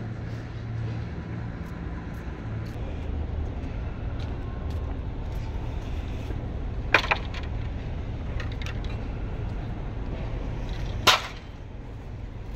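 Pieces of split firewood knocking and clattering as they are handled, with a sharp double clack about seven seconds in and a louder single clack about eleven seconds in, over a steady low hum.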